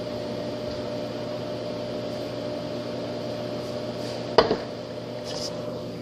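Microwave oven running with a steady hum while heating an egg in a bowl of water. About four seconds in comes a single sharp knock.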